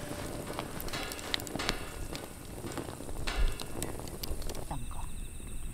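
Wood campfire crackling, with irregular sharp pops and snaps over a soft hiss.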